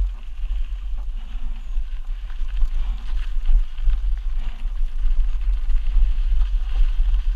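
Mountain bike descending a rocky dirt singletrack. Wind buffets the microphone as a steady deep rumble, while the tyres crunch over loose dirt and the bike rattles over rocks in short clicks.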